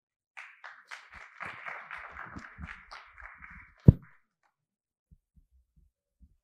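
Audience applause, thin and muffled, from about half a second in until almost four seconds, cut off by a single loud low thump.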